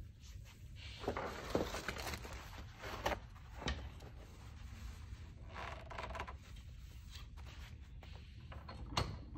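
Metal strut parts being handled and screwed together by hand: scraping and rubbing, with several light metallic clicks and a brief squeak midway.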